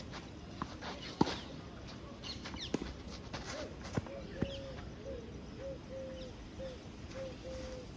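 Tennis ball struck by rackets and bouncing on the clay court: several sharp knocks, the loudest about a second in. From about halfway a bird calls a short, low note over and over, with a few higher chirps.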